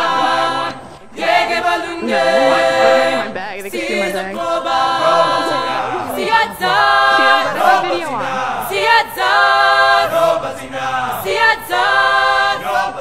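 Several voices singing together a cappella, choir-like, in short phrases of held notes.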